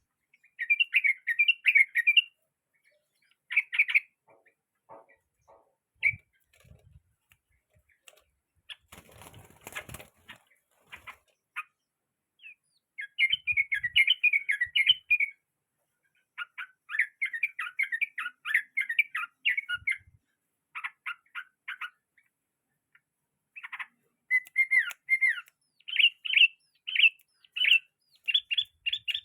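A trucukan (yellow-vented bulbul) chattering in bouts of quick, bubbly chirps, with pauses in between. There is a brief rustle about nine seconds in.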